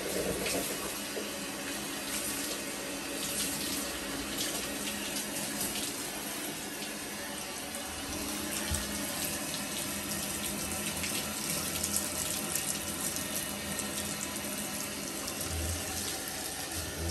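Handheld shower head spraying water steadily onto a malamute's soaked coat in a bathtub, with a continuous hiss and splatter.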